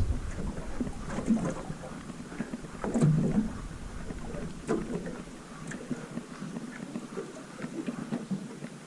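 Water slapping and lapping against a small boat's hull in irregular knocks, the loudest about three seconds in. A low wind rumble on the microphone fades out just after the start.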